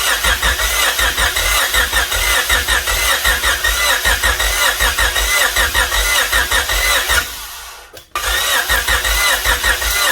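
Starter cranking the Honda Civic's engine in two long runs of even, rhythmic turning-over, broken by about a second's pause near seven seconds in. The engine never catches: it turns over but won't start, which the owner puts down to timing or fuel supply.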